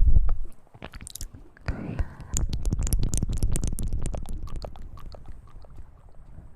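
A girl burping close to the microphone: a short, loud burp right at the start, then a long, drawn-out burp from about two seconds in that slowly fades, with wet mouth clicks throughout.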